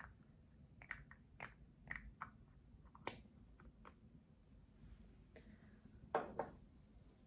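Fingers and long nails tapping and handling a small lidded cosmetic jar: sparse light clicks and taps, then a louder cluster of knocks about six seconds in as it is set down or the next item is picked up.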